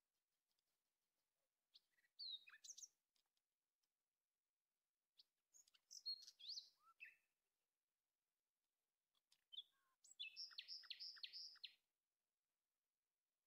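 Small birds chirping in short spells of high, quick, gliding notes, the last spell a fast run of about five repeated notes.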